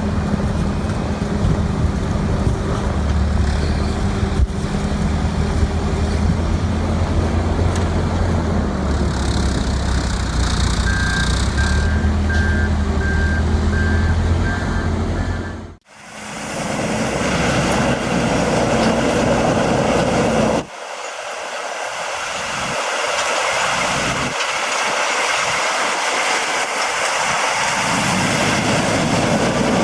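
Heavy vehicle engine running steadily, with a run of about eight short reversing beeps a little past the middle of the first clip. After a sudden cut, a loud, steady rushing noise from another machine takes over.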